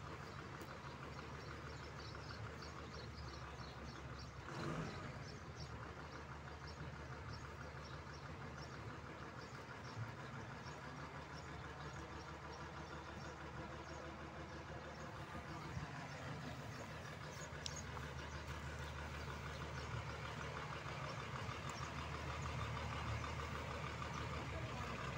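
Vehicle engine running with steady road noise, a low hum that stays even throughout, with a brief whoosh about five seconds in.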